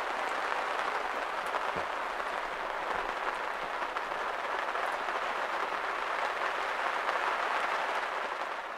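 Heavy rain falling steadily on a yacht's deck and the harbour water around it; it fades out near the end.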